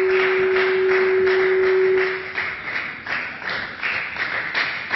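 A steady single-pitched tone that cuts off about two seconds in, over continuous clapping in the parliamentary chamber as a speech ends.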